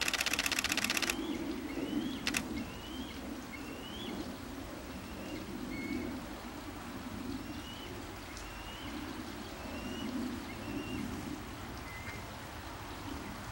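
A rapid burst of camera shutter clicks lasting about a second, then one more click about two seconds in. Under it, a bird repeats short rising chirps about once a second over a low, steady background rumble.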